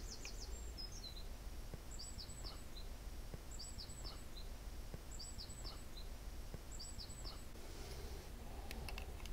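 A songbird singing the same short phrase of quick, high, falling notes over and over, about every second and a half, against steady low background noise. A few light clicks near the end.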